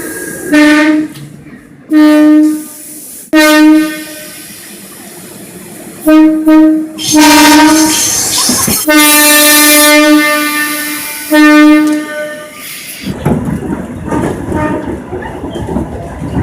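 Horns of Korail Line 1 resistance-control electric commuter trains, sounded in a series of blasts, each one steady low tone: several short toots, a quick double toot about six seconds in, and one long blast of over two seconds near the ten-second mark. Near the end the horns give way to the rushing noise of a train running on the rails.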